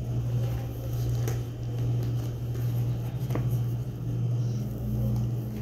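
A steady low hum, with a couple of faint taps from paper cards being handled.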